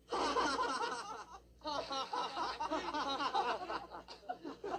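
Several young men laughing loudly together, breaking off briefly about a second and a half in, then laughing again.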